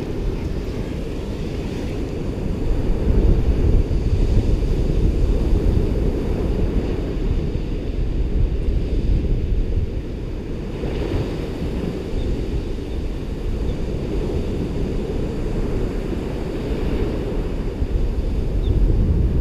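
Ocean surf washing on a beach, steady and unbroken, with wind rumbling on the microphone; the sound swells a few seconds in.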